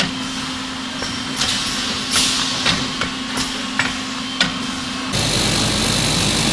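Chocolate ball lollipop making machine running: a steady hum with irregular sharp clicks and knocks. About five seconds in, the sound switches abruptly to a denser hum with a thin high whine.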